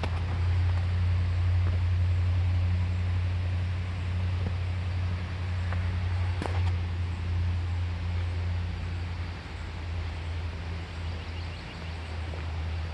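Steady low engine hum, easing slightly in the second half, with a single sharp tap about six and a half seconds in.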